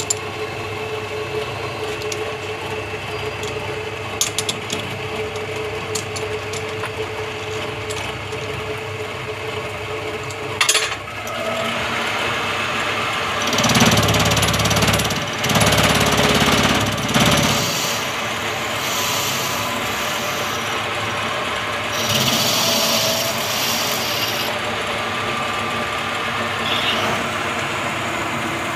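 Metal lathe running: a steady machine hum with a held tone and a few sharp clicks, then a louder, rougher stretch of noise for a few seconds about halfway through before it settles back to a steady running sound.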